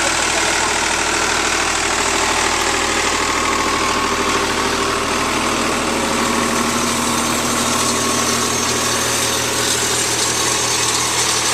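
Engine of a farm weeding machine running steadily at an even pitch as it works down a crop row with its rotating weeder.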